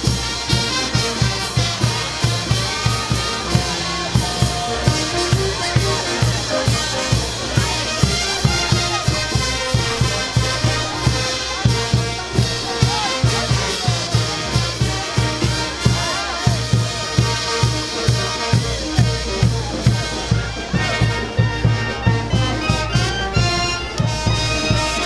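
Brass band playing, trumpets and trombones over drums that keep a steady beat of about two beats a second.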